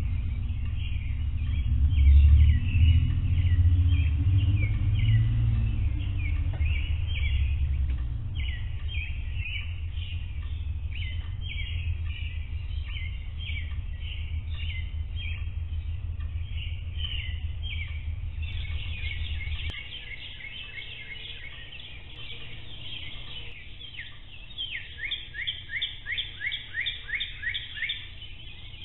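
Birds chirping in quick repeated calls, heard through a security camera's microphone over a low rumble that swells in the first few seconds and stops abruptly about two-thirds of the way through. Near the end one bird repeats a short falling chirp about twice a second.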